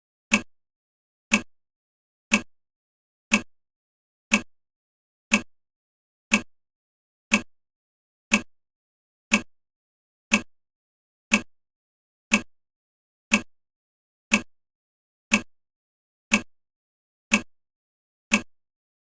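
Countdown timer's clock tick, one sharp, even tick each second.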